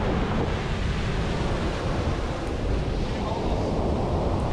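Ocean surf breaking and washing up the beach as a steady rush, with wind buffeting the microphone in a low rumble.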